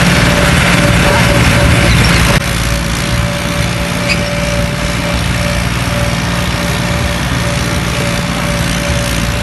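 Farm tractor's diesel engine running steadily as it tows a trailer along a road, heard up close from the trailer. The sound drops a step in loudness about two and a half seconds in and stays even after that.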